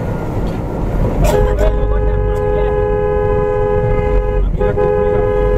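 A vehicle horn with two close pitches sounds about a second in and is held for about three seconds. It breaks briefly and then sounds again. Under it runs the steady low rumble of the vehicle driving.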